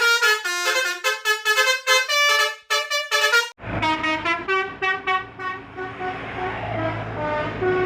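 A bus telolet horn, a multi-tone horn set, playing a quick tune of short, changing notes. From about three and a half seconds in, a low engine hum runs beneath the tune.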